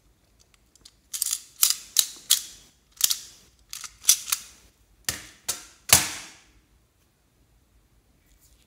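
A series of about a dozen sharp clacks of hard objects knocking together, coming irregularly two or three a second, each with a short ring.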